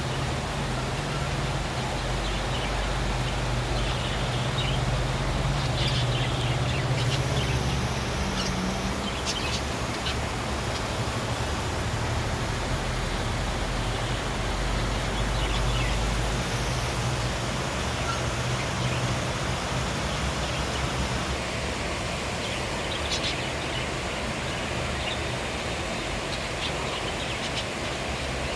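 Steady hiss of monsoon rain, with a few short bird calls about 4 to 7 seconds in and again about 23 seconds in. A low hum runs underneath for the first half, then fades.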